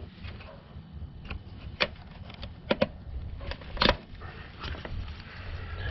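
Plastic push-in retainer on the cowl panel being worked loose with plastic retaining clip pliers: a scatter of short, sharp plastic clicks, the loudest a little under four seconds in.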